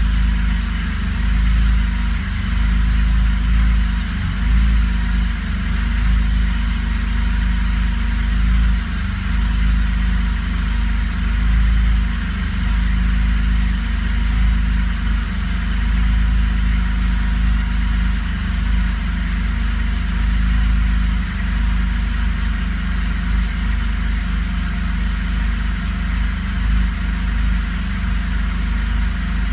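1983 Porsche 911SC's air-cooled flat-six engine idling steadily.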